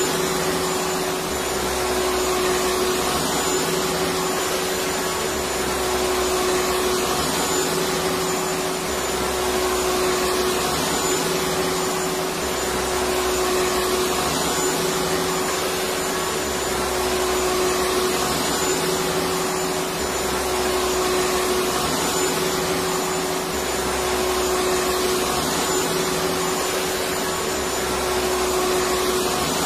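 Electric vacuum cleaner running steadily: a continuous motor whir with a steady hum, and a low rumble that swells and fades every few seconds.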